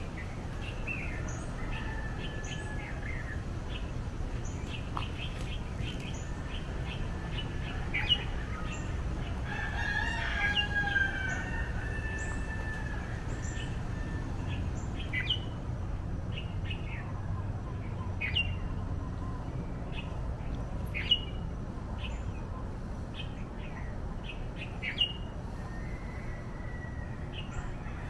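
Feral roosters crowing, with one clear drawn-out crow about ten seconds in, over many small birds chirping in quick short notes.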